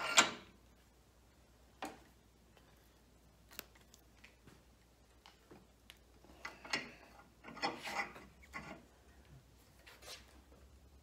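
Cast-iron bench vise being cranked by its steel bar handle: a loud metal clank near the start, a few sharp clicks, then short creaking, rasping strokes as the vise screw turns under heavy load, pressing a penny into a dome.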